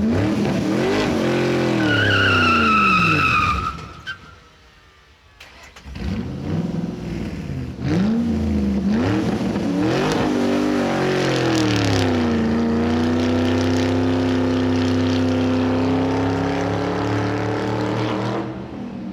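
Car engine revving up and down hard, with a tyre squeal about two seconds in lasting over a second. After a brief quieter gap the engine revs again in quick blips, then climbs and holds at high speed before dropping away near the end.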